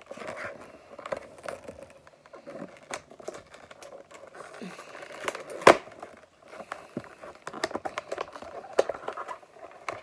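A small cardboard box being handled and opened by hand: scattered taps, scrapes and crinkling, with one sharp click about halfway through that is the loudest sound.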